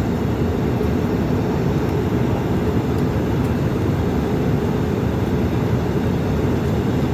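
Airliner cabin noise heard from a window seat: a steady rush of engine and airflow noise, mostly low-pitched, holding at an even level.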